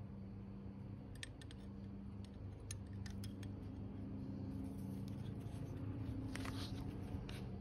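Faint, scattered light clicks of small parts being handled, in two short clusters, over a steady low hum.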